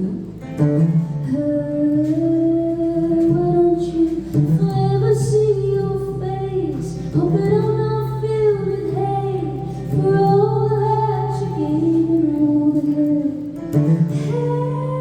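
A woman singing a slow song live in long, held notes over guitar accompaniment.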